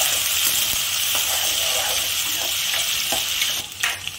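Chopped onions and green chillies sizzling in hot oil in a kadhai while a metal spatula stirs them, with faint scrapes of the spatula against the pan. The sizzle dips briefly near the end.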